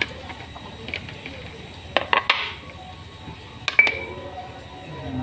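Stone pestle (ulekan) knocking and grinding chillies in a stone mortar (cobek) while sambal is made. It gives a few sharp, irregular knocks, a quick cluster about two seconds in and another near four seconds, one ending in a short high ring.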